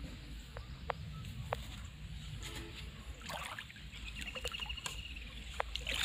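Outdoor ambience: a steady low rumble, as of wind on the microphone, with a few sharp ticks and a short, rapid, high-pitched trill about four seconds in.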